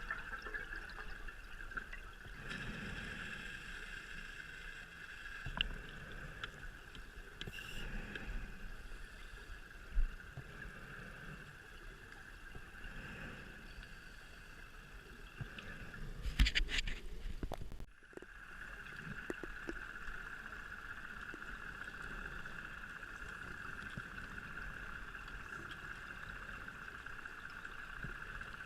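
Underwater recording during a scuba dive: a steady hum with the diver's breathing through the regulator, exhaled bubbles gurgling up every few seconds and a louder rush of bubbles a little past halfway.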